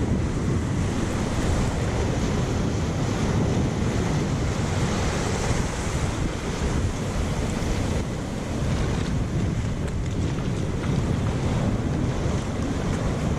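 Wind buffeting the microphone over the wash of sea surf, a steady rushing noise.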